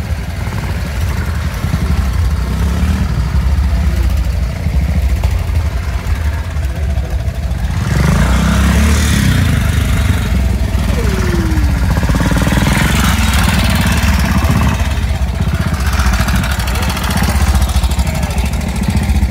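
Old British pre-1965 trials motorcycle engines running at low revs with a throbbing beat. About eight seconds in a bike gets louder, its revs rising and falling as it is worked.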